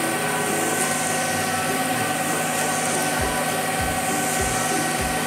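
Concrete mixer truck running with its drum turning as it discharges concrete down the chute: a steady mechanical drone with a few held tones, joined by low thumps from about three seconds in.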